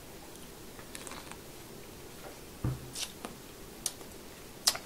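Faint wet mouth sounds and a few small clicks of someone biting and sucking on a lime wedge, with a brief low thud partway through.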